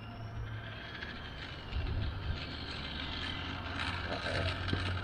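Traxxas Slash 2WD RC drag car with a brushless motor, heard from a distance: a faint motor whine and tyre hiss on asphalt that slowly grow louder as it comes closer, over a steady low hum.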